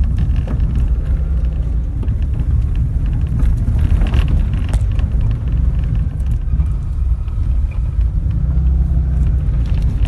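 Off-road jeep engine running at low speed as the vehicle rolls along a rough dirt road, heard from inside the cab as a steady low rumble, with a few brief knocks about four to five seconds in.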